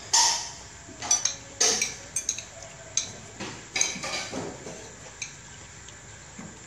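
Metal chopsticks and spoons clinking and tapping on ceramic plates and bowls while eating: a dozen or so short, light clinks at uneven intervals, thinning out after about four seconds.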